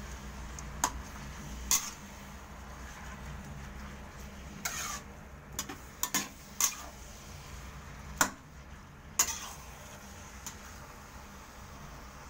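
Metal spatula clinking and scraping against an aluminium pan while stir-frying rice noodles, about ten irregular sharp clinks over a low steady hum.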